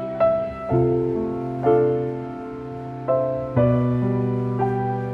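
Slow, gentle piano music: single notes and chords struck every half second to a second and a half and left to ring out.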